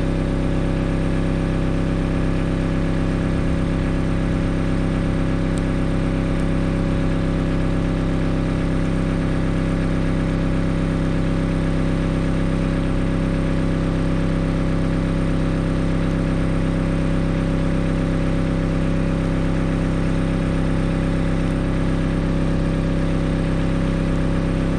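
Caterpillar E70B excavator's diesel engine idling steadily.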